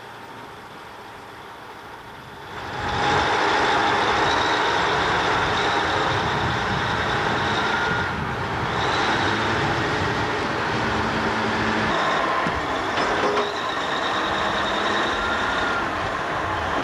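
Loading machine running under power, its sound rising sharply about two and a half seconds in and then holding steady with a few held tones over it.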